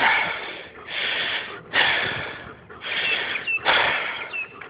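A person breathing hard and fast, with loud in- and out-breaths about one every second, close to the microphone, winded from the exertion. Two faint short high squeaks come in the second half.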